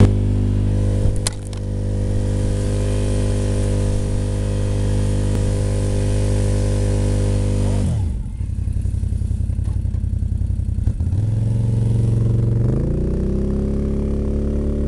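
Quad bike (ATV) engine running at a steady speed, falling off the throttle about eight seconds in to a slow, lumpy idle where the separate firing pulses can be heard, then revving back up and settling near the end. A couple of sharp knocks about a second in.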